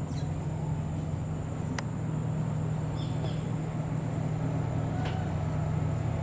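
Steady low engine drone, as from a motor vehicle or boat running, with a thin steady high tone over it and a couple of short high chirps about three seconds in.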